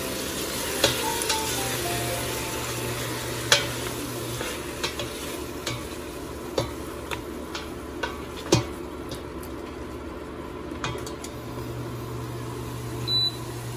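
Parboiled chicken pieces and onion sizzling in oil in a stainless steel pot as a spatula stirs them, knocking and scraping against the pot about ten times, loudest twice.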